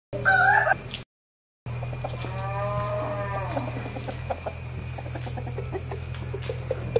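Desi fighting rooster giving a short, loud squawk as it is let go. It is followed a couple of seconds later by a longer call that rises and falls, and then a few short clucks.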